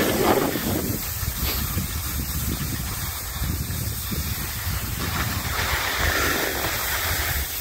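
Wind rumbling on the microphone over a steady hiss, which grows a little brighter about five seconds in.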